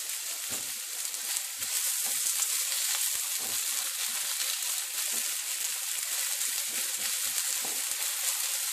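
Pancetta and sliced spring onion sizzling steadily in a hot nonstick frying pan as the onion softens, with light scrapes as a silicone spatula stirs them now and then.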